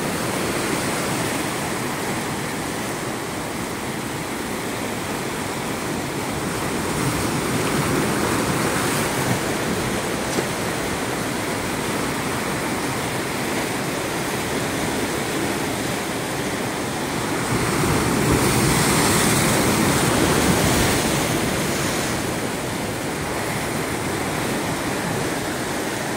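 Ocean waves breaking and washing over a rocky shore, a continuous churning rush of surf that swells as bigger waves break, loudest about two-thirds of the way through.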